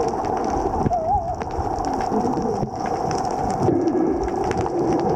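Underwater ambience picked up by a submerged camera: a dense crackle of small clicks over a steady hum, with a short warbling tone about a second in.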